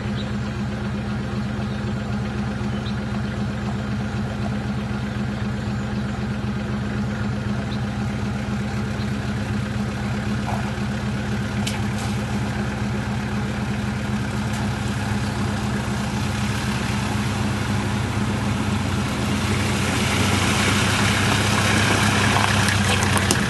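A four-wheel drive's engine running steadily at low revs as the vehicle crawls down a bank and into a shallow river crossing. From about twenty seconds in, water splashing and the engine grow louder as it drives through the water toward the microphone.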